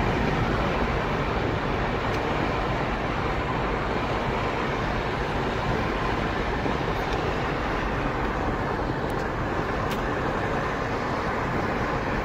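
Steady road noise of a car driving at speed, heard from inside the cabin: tyre rumble and engine hum.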